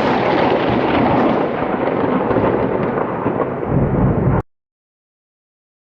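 Thunder rumbling loudly and continuously, cut off abruptly about four and a half seconds in, followed by dead silence.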